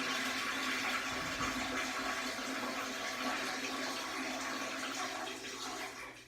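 Toilet flushing: a steady rush of water that dies away near the end.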